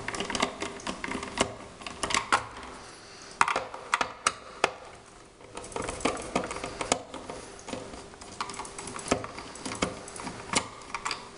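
Phillips screwdriver backing screws out of the plastic lower housing of a Hayward pool vacuum cleaner: irregular light clicks and taps of the tool against the plastic, a few a second, easing off briefly about halfway through.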